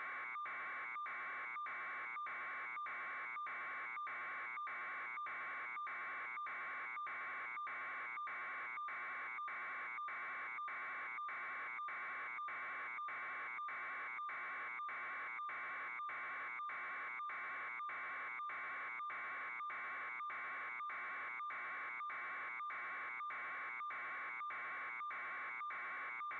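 A steady buzz, broken by short, evenly spaced dropouts about twice a second.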